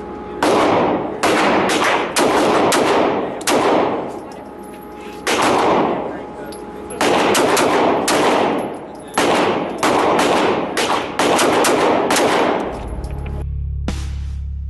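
Gunshots at a shooting range: about twenty shots at an irregular pace, often two or three in quick succession, each with a ringing tail. Music with a low bass comes in near the end.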